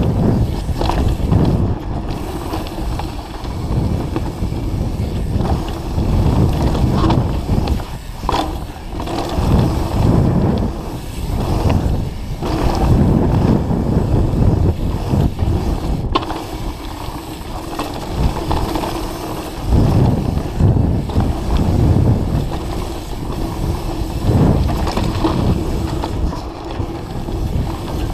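Mountain bike riding fast down a dirt forest trail: continuous rumble of tyres on the ground, with the bike rattling and knocking over bumps and swelling and easing as the terrain changes.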